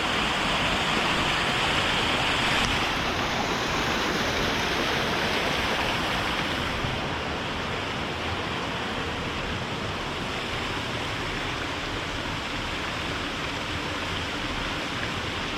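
Brook water rushing over rocks: a steady wash of water noise, a little louder in the first half.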